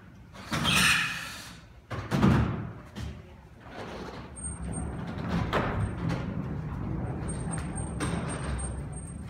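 A rotating stage set turning on its casters: a swish about half a second in, a heavy knock about two seconds in, then a steady low rolling rumble.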